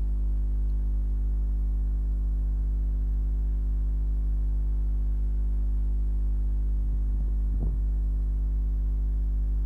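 Steady electrical mains hum, a low buzz with a ladder of overtones, picked up in the recording; a faint short sound comes about seven and a half seconds in.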